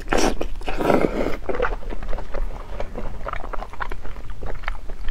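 Close-miked eating of thick hotpot pork large intestine: a loud wet bite and slurp in the first second or so, then irregular wet chewing and smacking.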